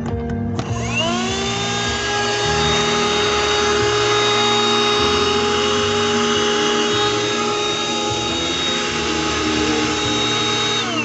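Tylex XV01 handheld car vacuum cleaner switched on: its motor spins up to a steady high whine with a rush of air, runs for about ten seconds, then is switched off and winds down near the end.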